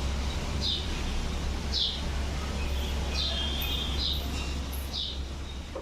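A bird chirping over and over, each chirp short and falling in pitch, about once a second, over a steady low hum.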